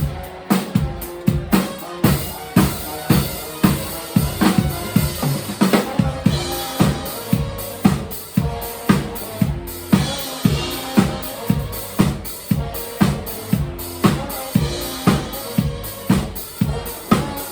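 Live band music driven by a drum kit playing a steady beat, with bass drum and snare hits about twice a second over low sustained bass notes.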